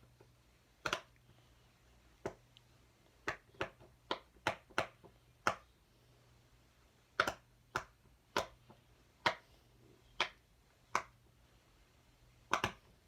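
Silicone pop-it fidget toy bubbles pressed through one by one, about fifteen sharp pops at an uneven pace.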